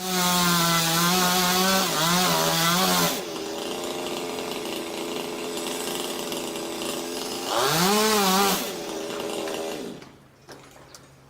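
Chainsaw running at full throttle through wood, its pitch wavering and dipping under load. It eases to a lower, steadier note for a few seconds, then revs up sharply again about eight seconds in. After that it winds down and stops about ten seconds in.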